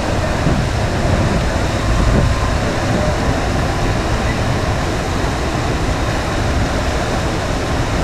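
Steady rushing of water from a FlowRider wave simulator, a thick sheet of water pumped up its padded slope, over a low, uneven rumble.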